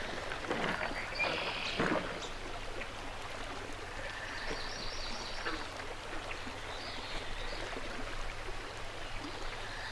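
Woodland outdoor ambience: a steady low hiss with a few rustles of movement through brush in the first two seconds and faint high chirps around the middle.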